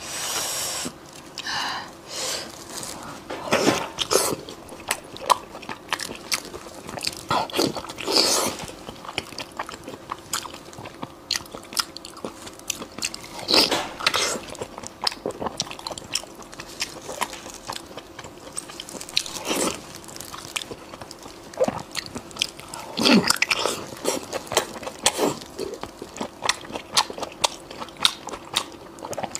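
Close-miked eating sounds: biting into and chewing a large piece of glazed roast meat, with wet mouth sounds, many sharp clicks and a louder bite every few seconds.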